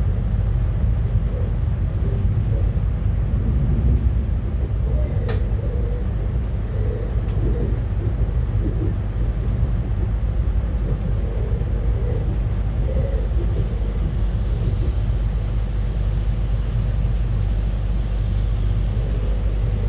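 ES2G Lastochka electric train running along the track, heard from inside the carriage as a steady low rumble, with a single sharp click about five seconds in.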